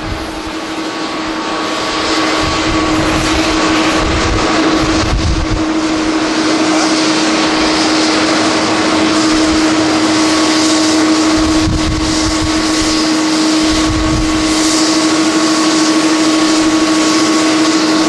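Twin jet engines of a Boeing 787 at takeoff power as the airliner rolls down the runway and lifts off: a loud, steady rushing sound with a steady droning tone, louder from about two seconds in. Gusts of strong wind buffet the microphone now and then.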